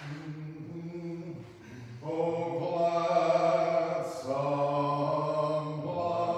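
Unaccompanied Orthodox liturgical chant, sung on long held notes, quieter at first and fuller and louder from about two seconds in.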